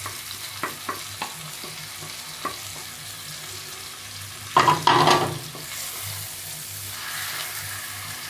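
Chicken, tomatoes and onions frying in oil in a non-stick pan, sizzling steadily as spices are added. A wooden spoon taps against the pan several times, then a louder stretch of stirring comes about five seconds in.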